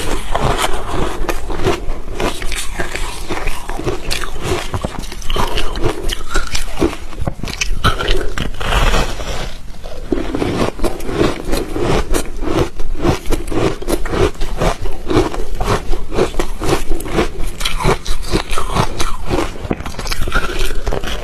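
Ice being bitten and crunched in the mouth close to the microphone: a dense, continuous run of sharp crunches.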